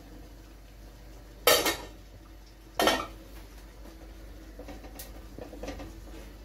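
Kitchenware being handled: two loud clatters about a second and a half apart, then quieter handling noises and a short click near the end.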